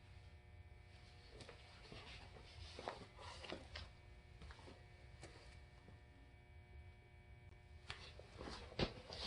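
Near silence: faint room tone with a low steady hum and a few soft clicks and taps, a little louder near the end.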